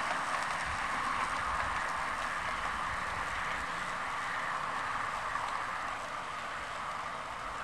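OO gauge model train running on garden track: a steady whirring rumble of the motor and wheels on the rails, easing off slightly near the end.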